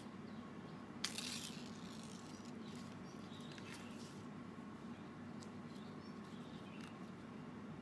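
Banana leaf being handled: a short, crisp tear or rustle about a second in, then faint rustles and small clicks over a steady low hum.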